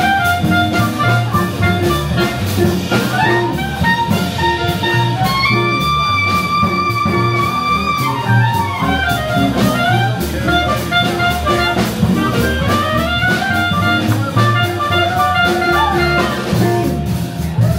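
Swing-jazz clarinet solo over upright bass and drums. The clarinet plays quick melodic runs and holds one long high note about six seconds in, then runs back down.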